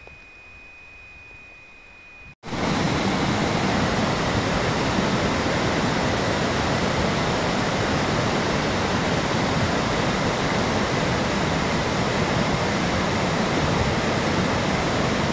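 Muddy river rushing, a loud steady wash of water noise that starts abruptly about two seconds in. Before it there is only a quiet background with a faint steady high tone.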